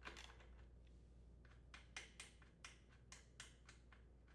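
Faint, quick clicks of a socket wrench ratchet loosening the nuts that hold the recoil starter on a Honda GCV160 engine, a run of light ticks about three or four a second from about a second and a half in.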